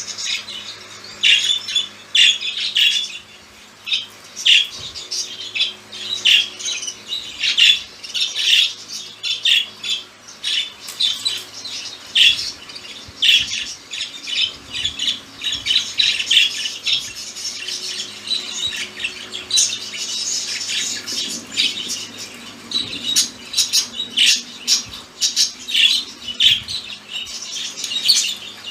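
Budgerigars chattering and squawking, with short, sharp calls following one another quickly and irregularly.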